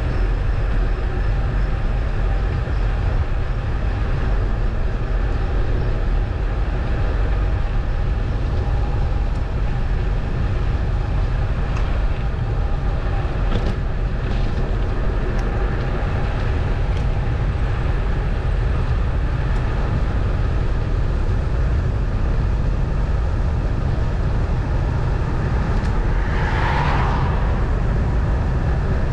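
Steady driving noise of a road vehicle under way: low engine and road rumble with a broad rushing haze, and a brief louder rush near the end.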